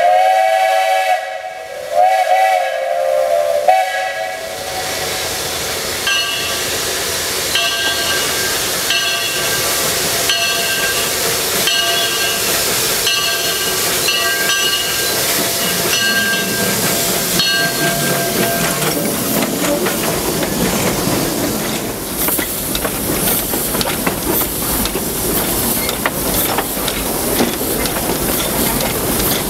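Steam locomotive sounding its whistle in two or three blasts, then its bell ringing steadily about once every 0.7 s as it approaches. Later a loud hiss of steam blowing from the cylinder cocks, with the rumble of the running gear, as the engine passes close by.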